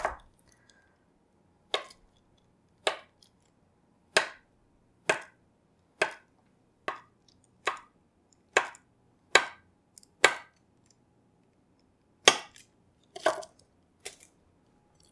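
Chef's knife slicing a chilled log of almond-coated shortbread dough into rounds, each cut ending in a sharp tap of the blade on the counter through parchment paper. About a dozen cuts, roughly one a second, with a short pause near the end.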